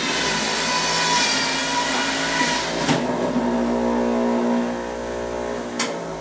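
Stainless-steel centrifugal juicer running, its motor whining steadily as produce is pressed down the feed chute. Two sharp knocks, about three seconds in and near the end.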